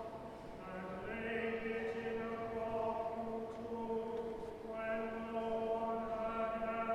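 Choir singing slow, long-held notes in chant style, moving to a new chord about a second in and again near five seconds.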